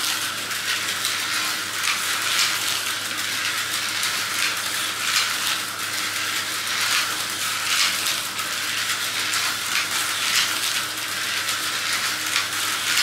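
Tyco HO slot cars running laps on a plastic track: a steady high whirring rattle from the little motors and the cars on the rails, swelling briefly about every two and a half seconds as the cars come round, over a steady low hum.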